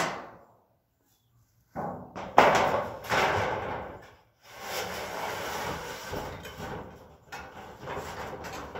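Corrugated steel roofing sheet being handled: a metal clang dying away at the very start, then, after a second's pause, the sheet rattling and scraping in spells as it is lifted and slid into place over another roofing sheet.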